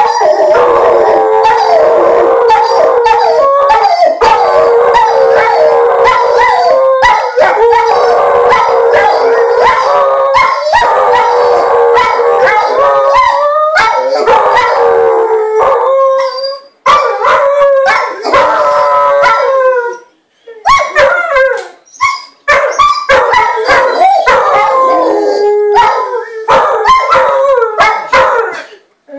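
Two dogs howling together, their long wavering howls overlapping. The howling is unbroken for about the first half, then breaks into separate shorter howls with short pauses.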